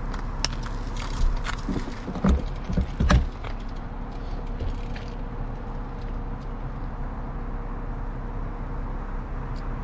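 A road bicycle being ridden, heard from a GoPro mounted on the bike: a steady rolling noise with a few knocks and rattles between about one and three seconds in.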